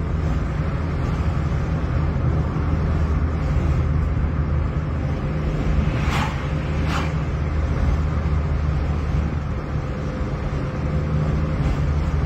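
Car driving at road speed, heard from inside the cabin: a steady low drone of engine and tyre noise. Two short sharp sounds about a second apart come near the middle.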